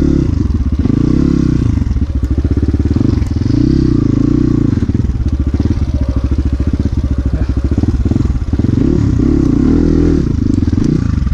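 Dirt bike engine running and being revved up and down over and over, its pitch rising and falling several times, as the bike is worked around on rough ground.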